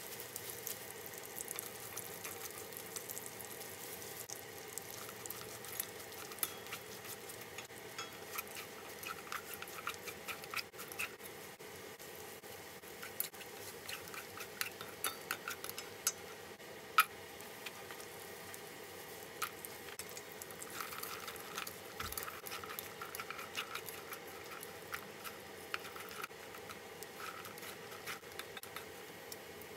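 Wooden spatula stirring dried anchovies as they fry in oil in a nonstick wok: irregular light scrapes and clicks against the pan, with a faint frying crackle.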